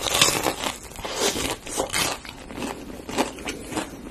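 Biting into and chewing a cheese corn dog coated in crispy fried potato cubes: a dense run of crunches and crackles.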